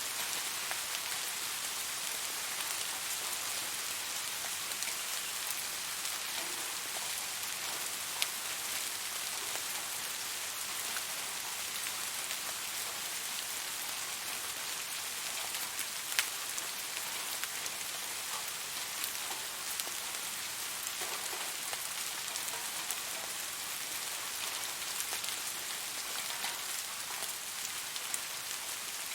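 Steady rain falling and pattering on surfaces, an even hiss with scattered sharper drop hits, one standing out about 16 seconds in.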